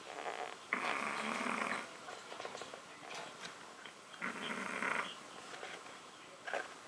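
A chihuahua snoring in its sleep: two loud snoring breaths, each about a second long and about three and a half seconds apart, with a softer fluttering breath between them.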